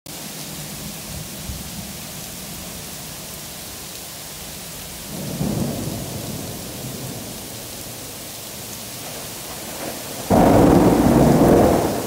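Heavy rain falling steadily, with a roll of thunder about five seconds in and a loud, sudden thunderclap about ten seconds in that rumbles on for a couple of seconds.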